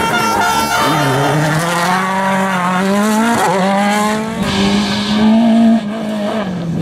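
Rally car engines revving hard through corners, the pitch climbing and dropping with gear changes and lifts off the throttle. The engine sound changes abruptly twice, about four and a half seconds in and again near six seconds, as one car gives way to another.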